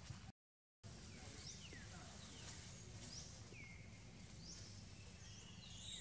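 Faint bird chirps, short high notes that rise or fall in pitch, every second or so, over a steady low rumble. The sound cuts out completely for about half a second near the start.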